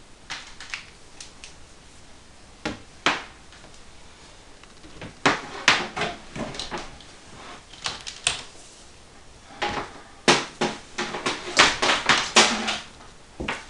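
Irregular clicks, knocks and clatter of cables and plugs being handled and connected at the back of a desktop computer, coming in clusters with a quick, louder run of knocks near the end.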